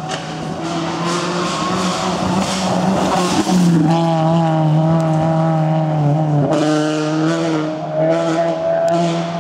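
Peugeot 206 rally car engine held at high revs as the car approaches and passes at speed, growing louder over the first few seconds.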